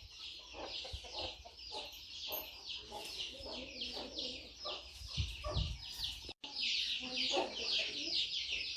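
Free-range country chickens clucking, over a continual run of short, high, falling peeps at about six or seven a second. A brief dropout comes about two-thirds of the way through.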